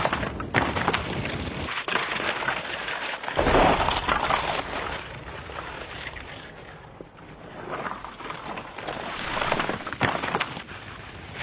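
Skis sliding and carving through loose sand, a rushing, hissing scrape that swells with each turn and fades between them, with a few sharp clicks.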